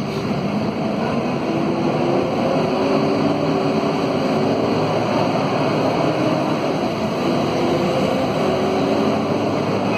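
Scania DC9 diesel engine and its howling radiator fan, heard from inside the bus under way. A steady rumble runs under a whine that rises gently in pitch twice.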